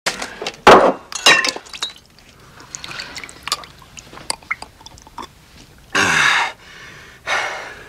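Glass and crockery clinking, with a sharp loud knock and a ringing glassy hit in the first second and a half and small clicks after. Near the end come two short breathy rushes of noise.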